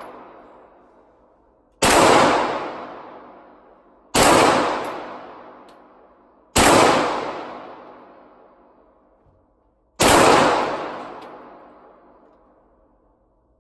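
Four single gunshots from a firearm, fired a few seconds apart, each sharp crack followed by a long reverberant tail in the enclosed indoor range. The shots are described as loud, with a lot of pressure behind them, heavier than a 9 mm.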